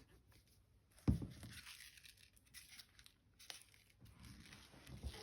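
Paper and craft materials being handled: a soft thump about a second in, then rustling and crinkling with small clicks.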